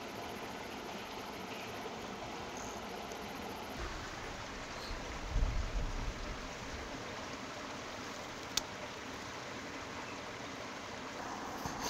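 Steady rushing outdoor ambience, with a low rumble about five to six seconds in and a single sharp click a little past eight seconds.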